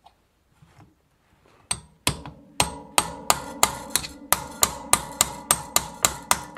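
Hammer striking a steel punch held against the threaded ring of a 1980 Sturmey Archer three-speed hub, knocking the ring round to unscrew it. A couple of blows come about two seconds in, then a steady run of ringing metal strikes, about three a second.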